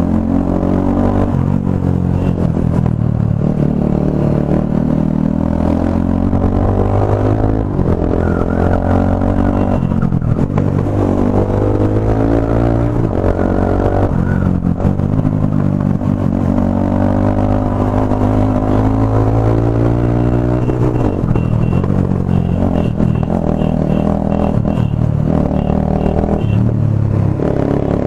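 Bajaj Pulsar NS200's single-cylinder engine revving up and dropping back several times as the motorcycle accelerates and shifts gears, with a steady low rumble underneath.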